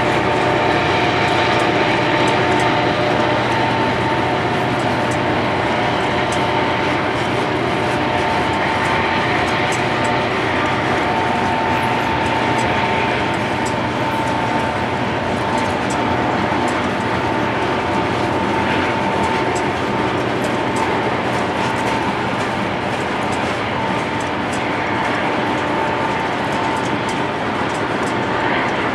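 Freight cars of a long train rolling past close by: a steady, loud rumble of steel wheels on the rails with faint rhythmic clicking, and a steady high-pitched tone running through it.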